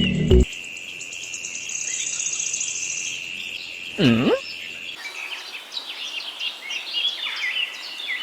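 Outdoor birdsong and insect sound after background music cuts off at the start: a steady high insect drone with a brief trill, then many short bird chirps in the second half. About four seconds in, one louder call swoops down in pitch and back up.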